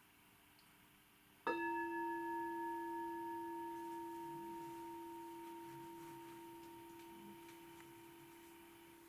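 Mindfulness bell struck once about a second and a half in, its clear tone ringing on and slowly fading, sounded for a moment of mindful listening.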